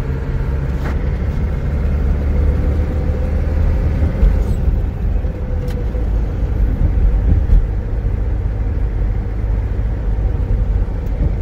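Car interior noise while driving: engine and tyres give a steady low rumble inside the cabin, with one steady hum running over it.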